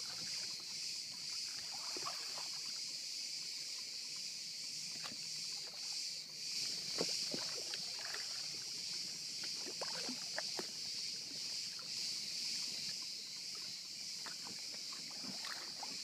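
Steady high-pitched buzzing of a cicada chorus, with light irregular clicks and splashes of water underneath.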